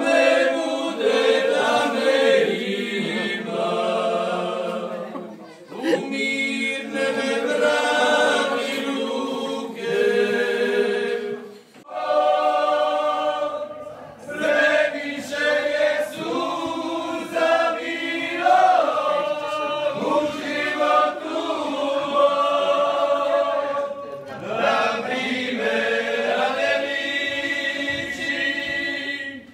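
A group of voices singing together unaccompanied, choir-like, in long phrases with short pauses between them.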